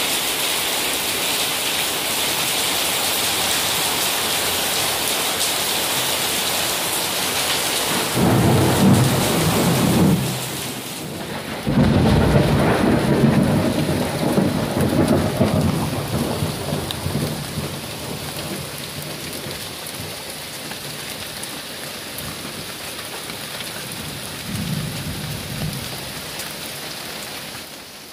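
Heavy rain pouring steadily during an electrical storm. Thunder rolls in about eight seconds in. A louder clap breaks suddenly near twelve seconds and rumbles away over several seconds, and a fainter rumble follows near the end.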